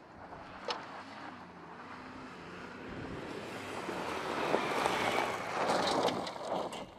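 A 2018 Ford Expedition's twin-turbo V6 and tyres driving fast on a gravel dirt trail, getting louder as it approaches. Loose gravel crackles and sprays from the tyres near the end as it passes.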